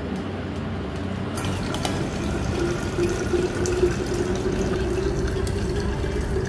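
Cold brew coffee poured in a steady stream into a stainless-steel whipped cream dispenser, starting about a second in, with a tone that rises slightly as the metal canister fills.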